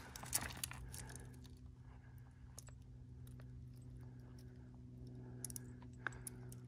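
Faint, scattered footsteps crunching and clicking on gravelly desert ground, with a few stronger crunches just after the start and near the end, over a steady low hum.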